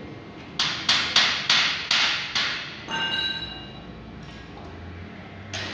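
Hammer blows on a steel square-tube frame: six sharp strikes in quick succession, about three a second, followed by a short metallic ring, and one more strike near the end.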